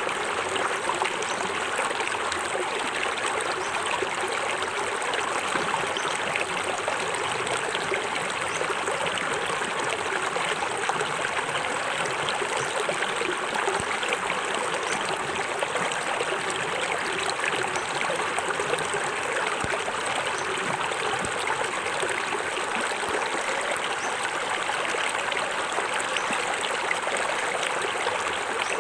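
Small forest waterfall: water splashing and rushing steadily over rocks.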